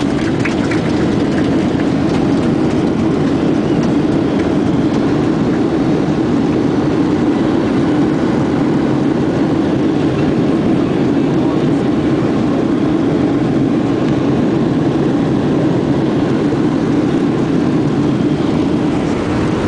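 Boeing 737-800's CFM56 jet engines and airframe heard from inside the cabin during the landing rollout, a steady loud roar as the plane decelerates down the runway with the thrust reversers open.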